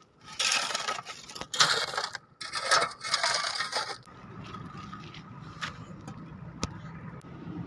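A shovel scooping stony earth three times, each stroke a noisy scrape of soil and gravel. Then a quieter, steady outdoor background with a few faint clicks.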